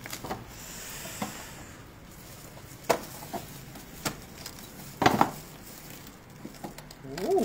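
A durian being opened with a knife and by hand: a few separate sharp cracks and clicks as the thorny husk is cut and split apart, with some rustling.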